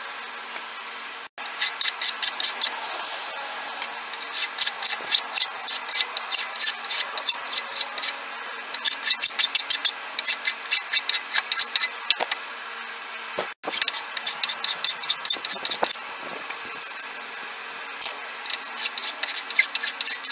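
Hand file shaping a hickory knife or spatula handle: runs of quick scraping strokes, about four a second, broken by short pauses.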